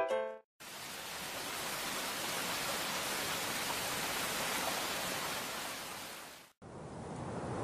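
Steady hiss of a rain sound effect, with no pitch or beat, fading in about half a second in and fading out near the end. A duller rushing noise then fades in.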